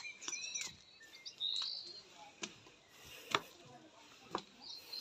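Small birds chirping in short gliding calls, with footsteps knocking on wooden decking about once a second, the loudest knock near the middle.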